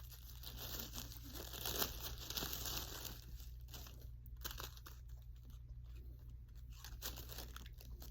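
Packaging being opened by hand, crinkling and tearing. It is densest for about the first three seconds, then falls to fainter rustles and small clicks.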